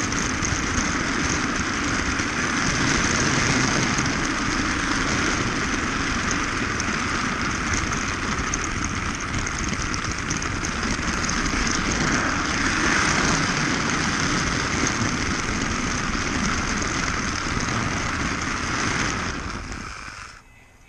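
Battery-powered toy train running on plastic flex track, heard up close from a car it is pulling: a steady mechanical whir and rattle of its motor and wheels that cuts off near the end.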